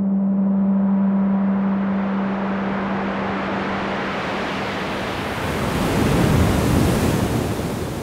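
A swelling whoosh of noise that grows steadily brighter and louder, peaking about six to seven seconds in. Under it, a low steady drone fades out about five seconds in.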